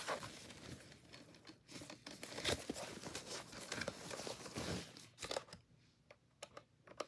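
Keyboard packaging being torn and crinkled open by hand: irregular rustling and crackling with scattered sharp clicks, dying down about five and a half seconds in.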